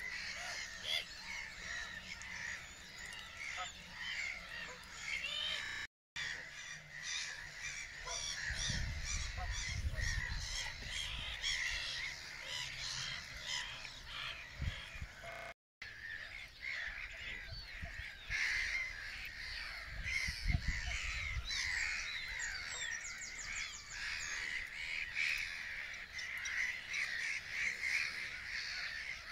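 A dense chorus of water birds calling at once, many overlapping squawks and cries. Low rumbles come and go twice, and the sound cuts out for an instant twice.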